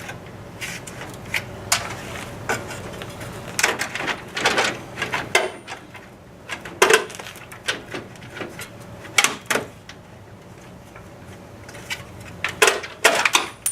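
Irregular clinks, clicks and knocks of small metal fasteners and hand tools being handled while the front end of a car is taken apart.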